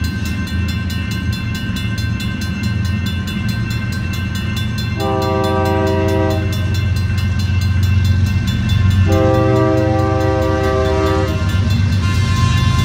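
Diesel locomotive of a BNSF freight train approaching with its engines rumbling low, sounding its multi-chime air horn twice: a long blast about five seconds in and a longer one about nine seconds in, the opening of a grade-crossing horn signal.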